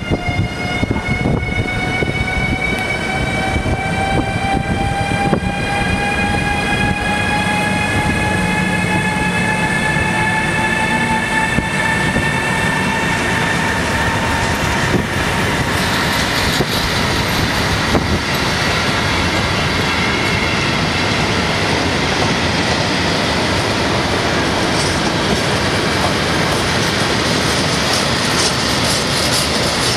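Freight train headed by an E189 electric locomotive and a De520 diesel locomotive accelerating away: the locomotives' traction motors give a whine of several tones that rises slowly in pitch for about the first half. Then the long string of covered freight wagons rolls by with a steady rumble and wheel clatter.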